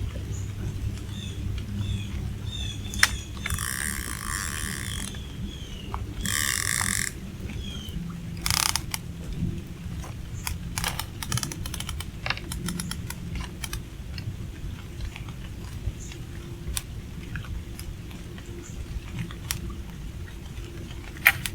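Fishing reel and tackle handled while rigging rods: two short buzzes, then a run of rapid ratchet-like clicks, over a steady low rumble.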